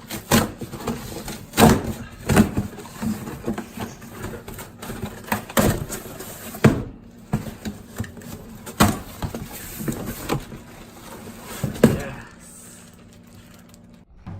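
Irregular knocks and clatter of things being handled, a dozen or so sharp hits spread unevenly, quieter near the end.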